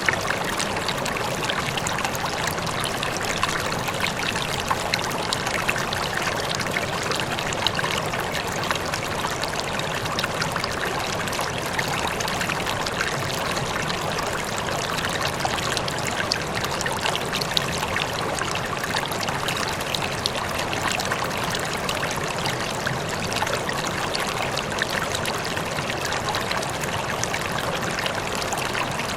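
Running water: a steady, even stream trickling and splashing, with fine bubbling detail and no change in flow.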